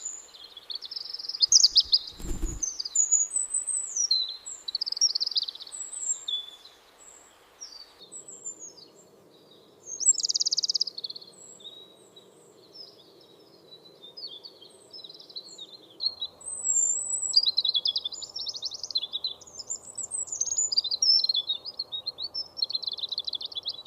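Several small songbirds chirping and twittering continuously, over a faint bed of outdoor ambience. A single low thump about two seconds in.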